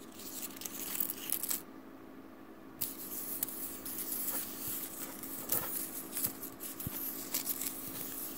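Paper cutout letters rustling and ticking on a wooden tabletop as they are scattered and shuffled. The dry rustle comes in two spells, with a pause of about a second between them.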